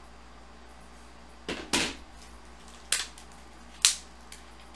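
Four short, sharp clicks and knocks, starting about one and a half seconds in and spread over about two and a half seconds: hard objects being handled on a desk, over a faint steady room hum.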